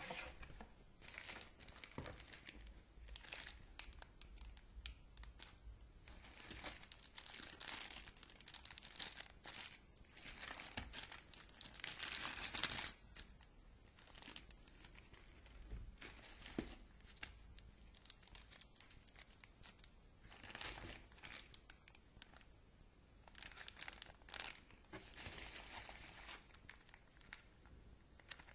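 Plastic packaging bags crinkling and rustling in irregular bursts as items are handled in a cardboard box, the loudest burst a little under halfway through.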